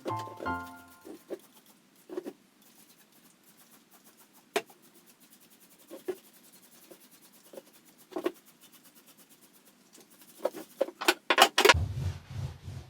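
Scattered light knocks and clicks of objects being handled, then a quick flurry of louder clatters near the end. A low, pulsing hum starts just after the clatters.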